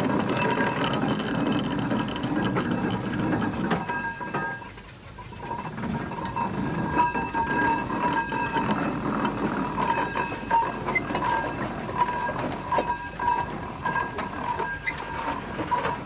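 Steam traction engine working, with a clatter of metal gear and wheels and a steady ringing tone over it. The sound dips briefly about five seconds in, then comes back with sharper knocks.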